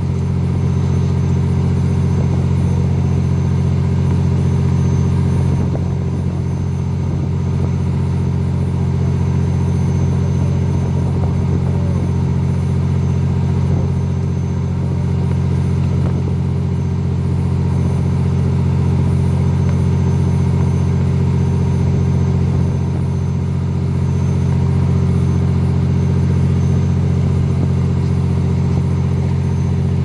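Fishing boat's engine running steadily: a deep, even hum that dips slightly in level a few times.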